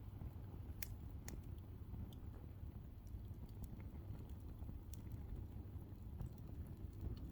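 Wood campfire crackling: irregular sharp pops and snaps, a few a second, over a steady low rumble.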